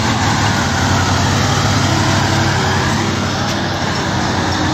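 Heavy overloaded truck's diesel engine labouring steadily under load as the truck pulls slowly over loose dirt, a continuous low engine note under a broad rushing noise.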